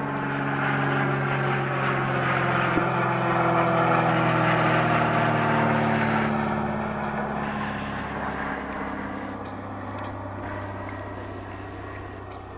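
A propeller aircraft's engine drones overhead in a slow pass. It grows loudest about four seconds in, its pitch sinking a little as it goes, then fades away.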